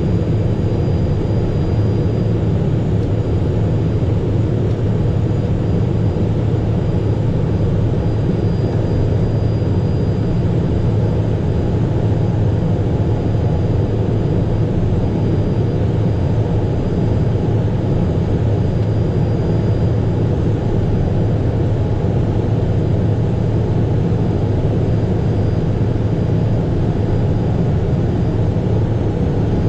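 Steady in-flight cockpit noise of a Cessna Citation Mustang light jet: airflow and the hum of its twin turbofans, a constant low-pitched rush with a faint high whine above it.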